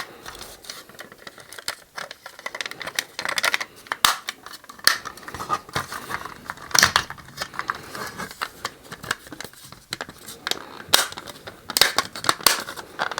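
Hard plastic parts of a toy shuttle clicking, tapping and rattling as they are handled and fitted together, with a few sharper clicks about four seconds in and again toward the end.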